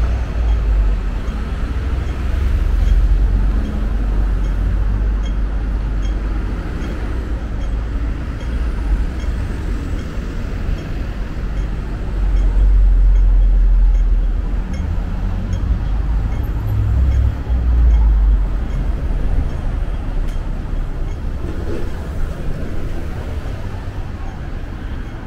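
Street traffic noise: cars and buses passing on the road, a deep rumble that swells twice, about halfway through and again a few seconds later, with a faint regular ticking a little faster than once a second.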